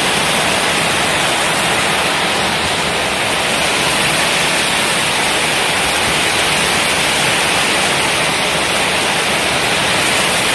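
Heavy tropical rainstorm: a loud, steady rush of downpour driven by strong wind.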